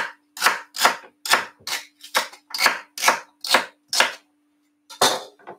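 Knife chopping celery stalks on a wooden cutting board: about ten quick, even strokes, a short pause, then a couple more cuts near the end.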